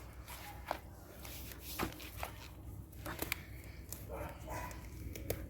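A dog barking faintly a few short times, amid scattered light clicks and taps.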